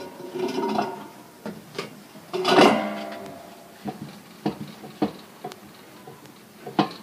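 Clatter and scraping of a spatula against a large aluminium rice-cooker pot as cooked rice is stirred and fluffed: a series of sharp knocks, with one louder, longer grating sound about two and a half seconds in.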